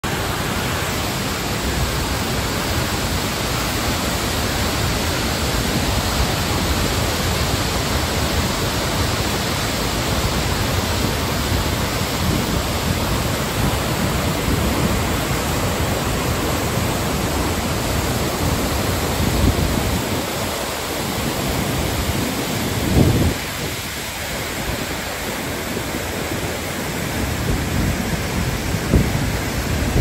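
Steady, loud roar of the Bad Gastein waterfall, water crashing down over rocks, with a few low bumps on the microphone in the second half.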